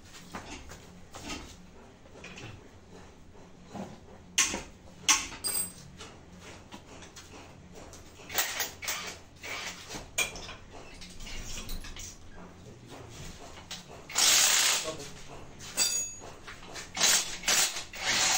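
Intermittent clinks and knocks of tools and metal parts as a two-stroke engine is worked on by hand, with a louder rasping burst of about a second near the end.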